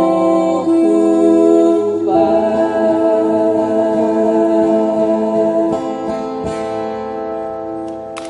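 Live acoustic band: several voices singing long held notes in harmony over strummed steel-string acoustic guitars. The chord changes about two seconds in and the sound fades toward the end, as the song's closing chord dies away.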